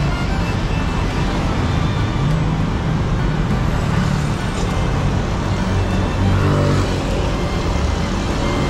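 City road traffic: a steady rumble of cars and motorbikes passing along a main road, with a vehicle's engine tone standing out briefly about six to seven seconds in.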